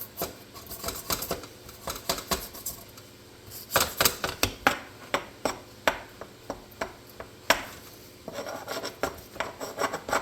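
A razor blade scraping burrs off a drilled part in short, irregular strokes, with sharp clicks and light clinks as the blade and part knock together.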